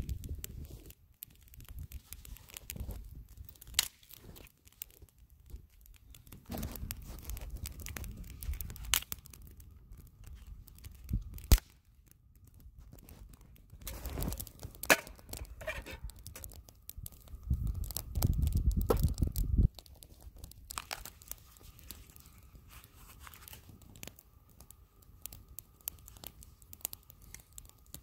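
Crackling and crunching from a small twig fire catching on snow, mixed with rustling and crunching of movement in crusted snow. There is a sharp snap about a third of the way in, and a stretch of low rumble about two-thirds through.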